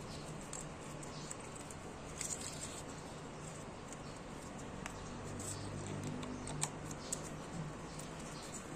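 Faint clicks and rustles of fingers handling the throttle body and its plastic wiring connector, a few sharper clicks about two seconds in and near the end, over a low steady hum.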